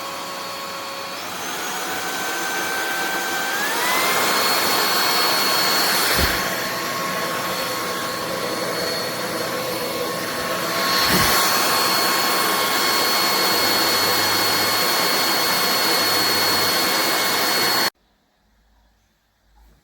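MIUZZY cordless stick vacuum running, its motor whine stepping up in pitch twice within the first four seconds as it speeds up. There is a knock about six seconds in and another about eleven seconds in. The motor cuts off suddenly near the end.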